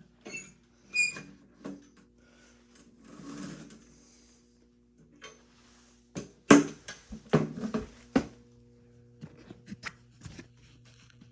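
Irregular clicks and knocks, with a louder cluster of them about six and a half to eight seconds in, over a steady low hum.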